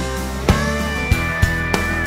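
Instrumental background music with a steady beat; a long held high note comes in about half a second in.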